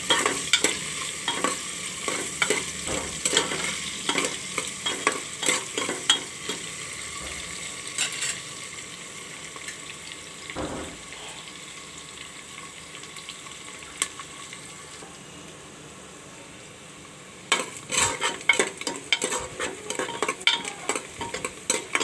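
Sliced onions and curry leaves frying in oil in a metal pressure cooker, with a steady sizzle, while a metal spoon stirs and scrapes against the pot. The stirring pauses midway, leaving only the sizzle, and starts again near the end. The onions are at the stage of a light fry, cooked only until their colour just begins to change, not until soft.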